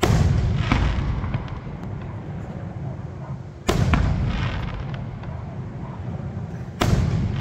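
Aerial firework shells bursting overhead: three loud booms about three seconds apart, each trailing off in a low rolling echo, with a smaller crack shortly after the first.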